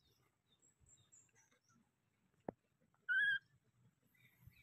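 A baby monkey gives one short, clear call a little over three seconds in, with a single sharp click shortly before it.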